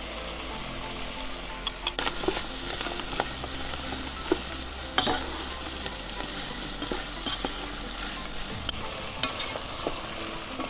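Chicken, mushrooms and onion sizzling steadily in a nonstick pot while a wooden spatula stirs them, with scattered light clicks and scrapes of the spatula against the pan.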